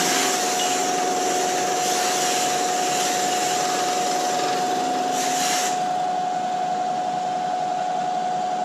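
Steady hum of shop machinery with one constant whine. About five seconds in comes a short burst of hiss that fits a compressed-air blow gun clearing chips from the machined head.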